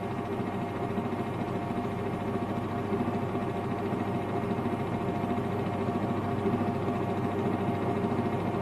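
Steady droning hum of several held tones, a suspense drone in the horror film's score, swelling slightly toward the end.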